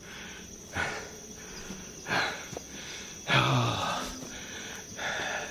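A hiker breathing hard while walking uphill: four loud breaths about every second and a half, one with a slight voiced groan. Under them runs a steady high-pitched insect drone.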